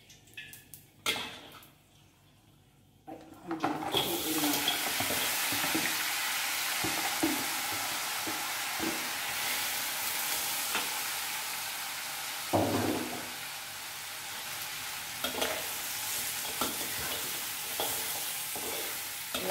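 Corn-flour-dusted crabs frying in very hot oil in a steel wok. A loud, steady sizzle starts suddenly about three and a half seconds in as they hit the oil. Before it, a metal spatula clicks on the empty wok; during it, the spatula scrapes and knocks as the crabs are turned, loudest about twelve seconds in.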